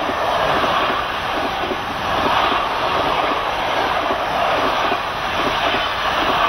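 Passenger train coaches rolling past at speed close by: a steady rushing noise of wheels on rails, with many small irregular wheel knocks.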